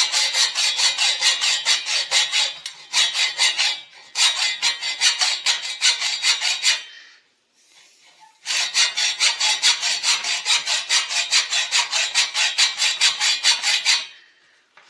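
Hacksaw cutting through the metal cylinder of a Husqvarna 1100 chainsaw in quick, steady rasping strokes, taking the top off the cylinder. The sawing breaks off briefly about four seconds in, pauses for about a second and a half near the middle, then resumes and stops shortly before the end.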